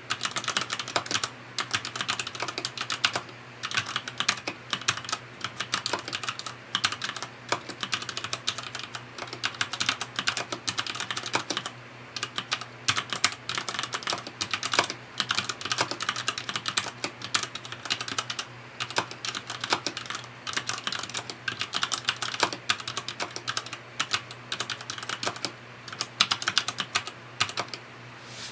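Touch typing on a FILCO Majestouch 2 mechanical keyboard with Cherry MX Red linear switches: rapid key clacks in runs of a few seconds, broken by short pauses.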